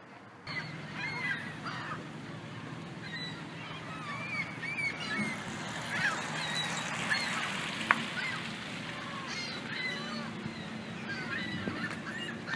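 A flock of gulls calling: many short, overlapping cries that start abruptly about half a second in and go on throughout, over a steady low hum.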